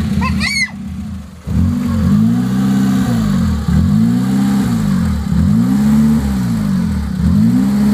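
Mitsubishi L300 pickup's petrol engine revved up and down over and over, roughly once a second and a bit, starting about a second and a half in after a brief dip.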